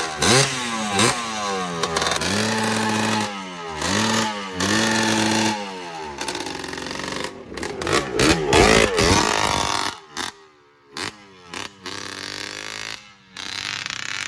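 Truck engine being revved: the pitch sweeps up and down, holds steady for a few seconds, then sweeps again. Near the end it drops away and catches only in short bursts. The engine is running rough; it dies at idle and is down on power.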